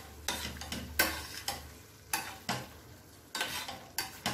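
A metal spoon stirring macaroni and paneer in a thick masala in a steel pan, scraping and knocking against the pan in irregular strokes about twice a second.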